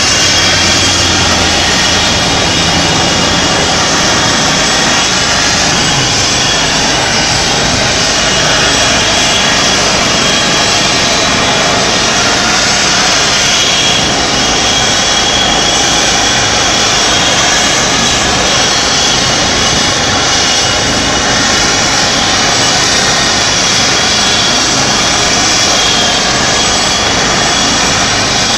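Trauma helicopter running on the ground with its turbine engine and rotor turning: a loud, steady rush with a faint high whine, holding even throughout.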